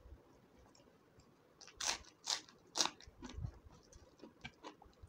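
Crispy fried food being crunched close to the microphone: three loud crunches in quick succession about two seconds in, then fainter crackles and clicks.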